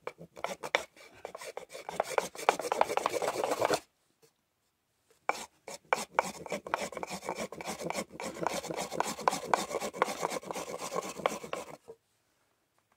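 Rudiger fire roll: a small wooden block rubbed rapidly back and forth over a flat wooden board, rolling ash-dusted tinder between them to heat it toward an ember. Two bouts of fast scraping strokes, about four seconds and then about six and a half, with a short pause between, stopping shortly before the end.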